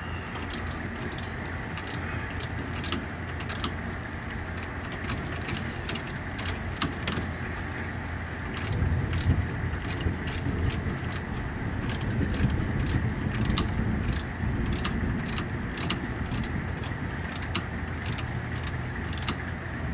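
Repeated metallic clicks, a couple a second, from a wrench being worked to unscrew a freshly loosened power steering line fitting, over a steady low hum.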